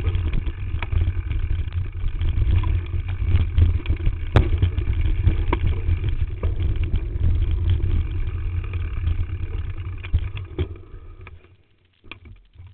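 Frame-mounted camera on a mountain bike riding a rough, rocky trail: a heavy low rumble of trail vibration and wind on the microphone, with frequent rattles and knocks from the bike. The rumble dies away about eleven seconds in, leaving a few last knocks.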